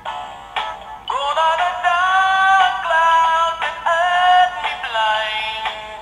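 Animated singing plush toy bird with a sunflower playing its song: a few short notes, then from about a second in, long held sung notes over a musical backing.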